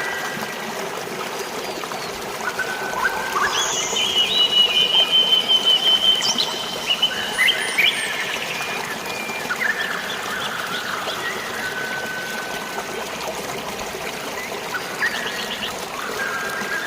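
Steadily flowing, trickling water with several birds calling over it in short whistled notes, and a louder rapid, pulsing call about four seconds in lasting a few seconds.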